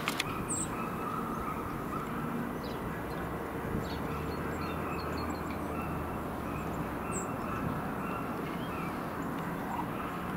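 Track geometry car's diesel engine running at a distance as the car approaches slowly along the rails: a steady low drone. A bird chirps twice, near the start and about seven seconds in.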